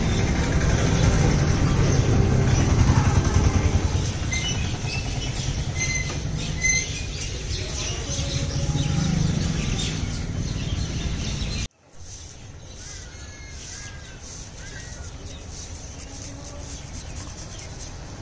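Outdoor ambience with birds chirping over a steady low rumble. The rumble cuts off abruptly about two-thirds of the way through, leaving quieter background with a few more bird chirps.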